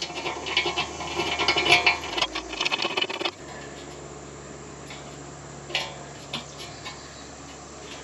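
Metal clicking and rattling of a wrench and bolts on a motorcycle's engine guard and footpeg mount for about three seconds. It then stops suddenly, leaving a faint steady hum with a couple of light clicks.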